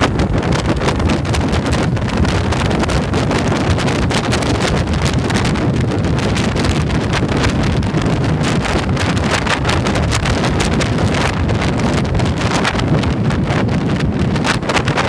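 Steady wind rushing over the microphone of a camera on a moving motorcycle, with the motorcycle's engine and road noise running underneath.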